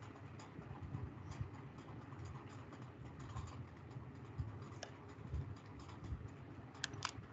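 Faint, irregular clicks of typing on a computer keyboard over low background noise, with a few sharper keystrokes near the end.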